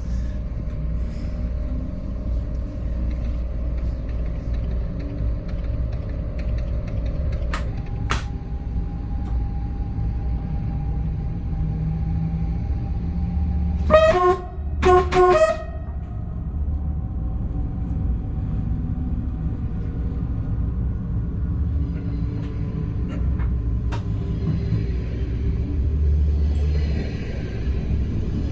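Dutch train's horn sounding two short blasts about a second apart, halfway through, over the steady low rumble of the moving train.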